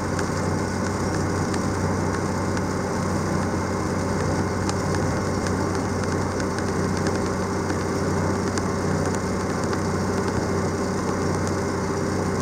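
Diesel engine running steadily, a constant hum with a few fixed tones over a low rumble, with faint light ticks scattered through it.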